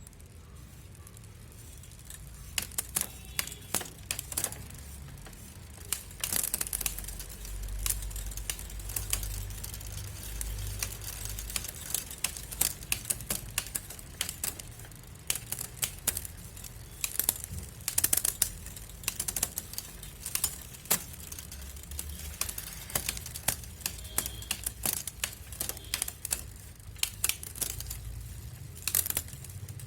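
Irregular clicks and rattles from a bicycle being handled and worked on, some in quick clusters, over a low rumble that swells a few times.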